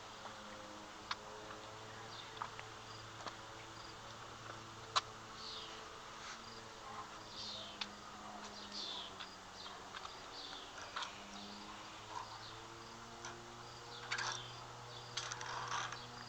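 A steady low buzzing hum, with scattered light clicks and clinks of small items being picked up and handled; the sharpest click comes about five seconds in.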